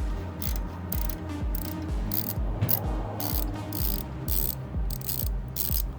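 Socket ratchet clicking in repeated short strokes, about two a second, loosening the exhaust header bolts on a Harley-Davidson, over background music with a steady beat.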